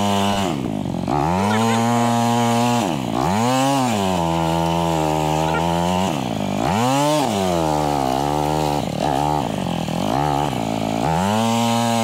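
Dual sport motorcycle engine revving hard, the throttle rolled off and opened again several times, while the mud-packed rear tire spins without traction on a slick hill.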